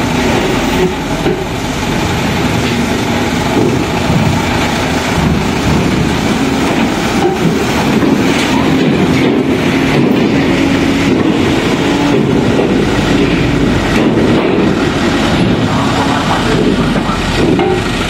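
Diesel light trucks driving slowly past at close range in a queue, engines running with a steady rumble, and scattered knocks as the wheels roll over the ramp.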